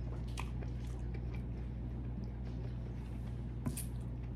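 Close-miked chewing of a mouthful of tiger prawn: faint wet mouth sounds with a few soft clicks and one sharper smack about three and a half seconds in, over a steady low hum.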